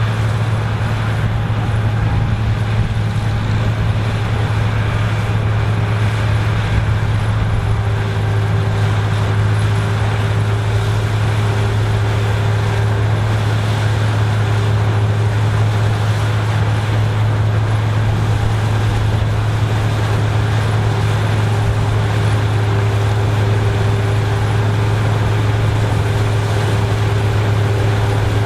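An engine running at a steady speed, a constant low drone with no change in pitch or level.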